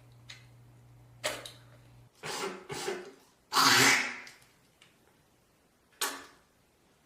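A person coughing and hawking up phlegm from the throat: a sharp burst, a couple of rasping ones, then one loud, forceful one, and a last short, sharp one near the end.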